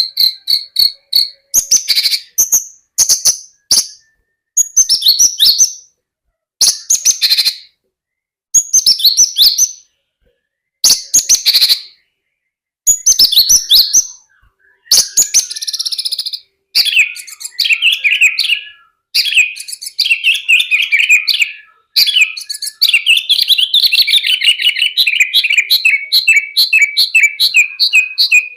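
Javan bush lark (branjangan) singing hard: bursts of rapid, high chirping and buzzy phrases broken by short pauses, opening with a steady high trill and running into a longer unbroken stretch of song in the last third.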